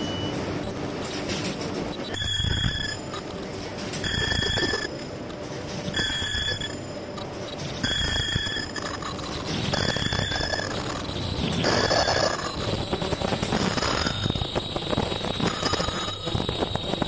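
An electronic warning beeper gives a pitched beep about every two seconds, each beep just under a second long, over the running noise of a plastic bag-making machine. The beeps fade and grow irregular after about twelve seconds.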